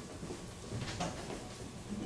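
A pause in speech: quiet room tone with a steady low hum and a couple of soft, faint small noises about halfway through.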